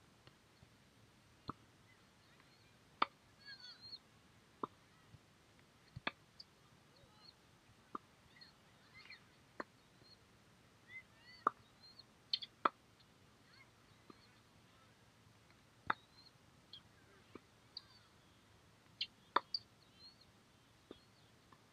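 Tennis balls in a practice rally on a hard court: faint, sharp pops of racket strikes and ball bounces, irregularly spaced every one to three seconds.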